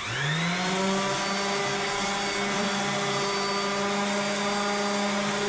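Handheld power sander spinning up in about half a second, then running steadily with a hum and a rushing hiss as it sands fresh fiberglass.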